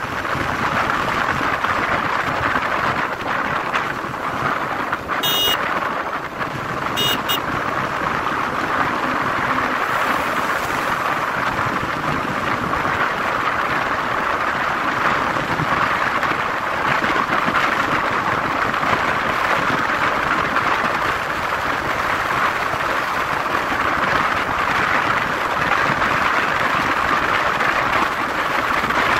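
Steady rush of wind and road noise from a motorcycle cruising at speed on an open highway, with two brief high clicks about five and seven seconds in.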